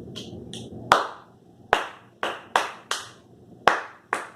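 Hands clapping: about seven sharp claps in an uneven rhythm, starting about a second in, after two lighter taps.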